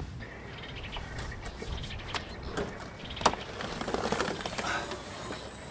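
Birds chirping, then a few sharp knocks and a spell of clattering and rustling as an Alu-Cab Gen 3 rooftop tent is being raised.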